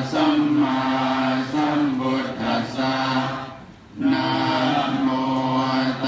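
Buddhist chanting by a group of voices in unison, recited on a steady held tone, with a short pause for breath a little past the middle before the chant resumes.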